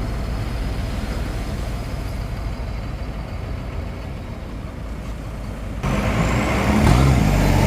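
Engine of the vehicle pushing a boat trailer to the water, running steadily, then suddenly louder and heavier about six seconds in.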